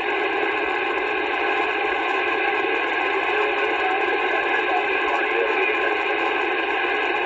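Steady hiss of band noise from an AnyTone AT-6666 radio's speaker on receive, with no voice getting through. The distant skip station has faded out under the noise as conditions change.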